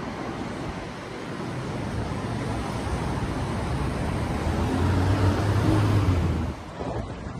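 City street traffic with a motor vehicle passing close. Its low engine hum builds to loudest about five to six seconds in, then drops away abruptly near the end.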